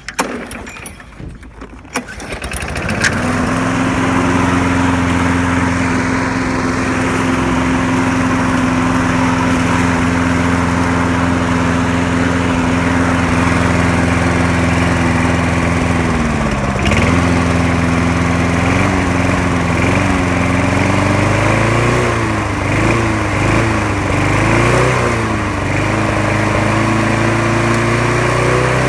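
Small four-stroke lawn mower engine pull-started: it catches about three seconds in and runs at a steady speed. About halfway through its speed dips, then rises and falls several times as the throttle is worked by hand.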